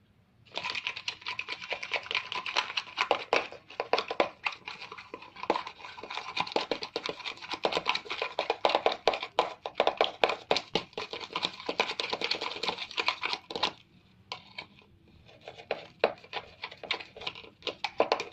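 Homemade slime being squeezed and kneaded by hand: a dense run of sticky, wet crackling and small pops, pausing for about a second partway through before starting again.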